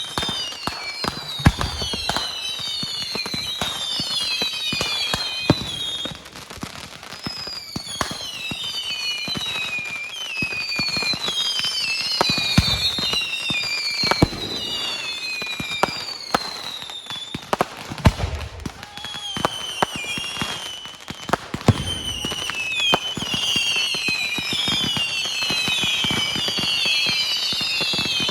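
Fireworks display: many whistling fireworks sounding at once, their whistles falling in pitch and overlapping, over a dense run of sharp cracks. Deep booms come a few times, around the start, about halfway through and a little later.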